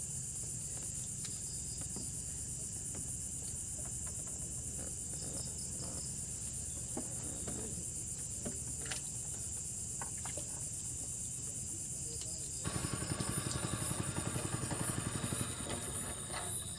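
Crickets and other night insects chirping steadily over a low hum. A few faint clicks come midway as a fishing rod is handled and set on the rack. Near the end the insect chirping turns denser and pulsing, and the low hum grows louder and more uneven.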